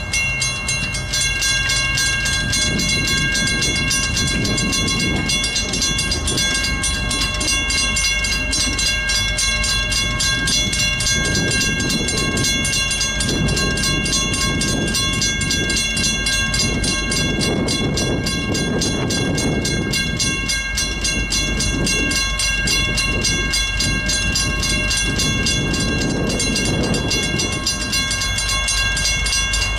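Mechanical railroad crossing bell ringing with rapid, continuous strikes as the crossing signal activates. A fluctuating low rumble sounds underneath.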